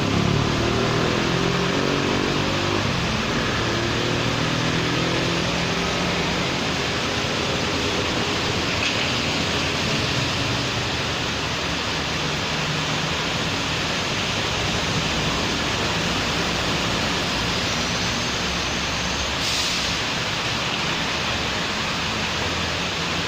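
Steady rain falling on a city street, with the hiss of passing traffic. In the first few seconds a vehicle engine hums past, its pitch falling, and a brief tick comes about 19 seconds in.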